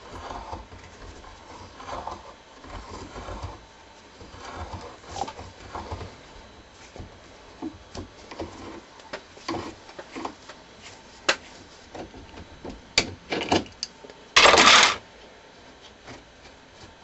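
An adjustable wrench working the bolt on top of a steel swaging die in a reloading press, turning the bolt to push the formed lead bullet back out of the die: scattered metal clicks and clinks as the wrench is turned and repositioned. There is a louder half-second scrape near the end.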